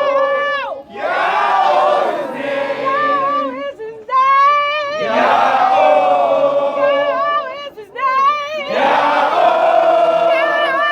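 A group of voices raising long, loud held cries together as a noise of praise, wavering in pitch, in long waves broken by short breaths about 1, 4 and 8 seconds in.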